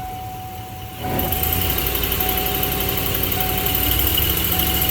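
Ford 4.6 V8 engine running, rising to a higher, steady speed about a second in and holding there, as it is run to check for a cylinder 4 misfire. A thin steady tone runs through it with short breaks.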